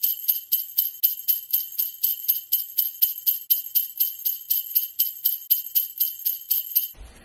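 Jingle bells shaken in a steady rhythm, about four shakes a second, with no room sound beneath them, stopping suddenly near the end.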